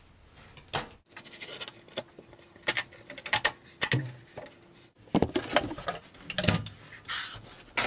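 Carpet and foam carpet pad being pulled up and handled by hand: a run of rustles and scrapes with many sharp clicks.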